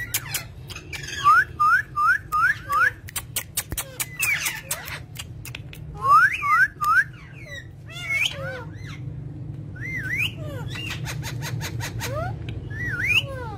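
Pet parrot whistling series of short rising chirps: five in quick succession about a second in and three more around six seconds, with other whistled notes and sharp clicks between. A steady low hum runs underneath.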